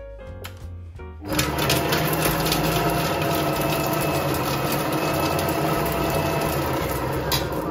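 Silvercrest Monsieur Cuisine Connect food processor's blade motor running at speed 6 for about six seconds, chopping chili peppers and garlic in the mixing bowl, a steady whine with chopping noise. It starts about a second in and stops near the end, the whine falling as the blade winds down.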